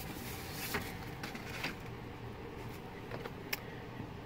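Paper and card being handled and slid off a stack: soft rustling with a few light clicks and taps, over a low steady room hum.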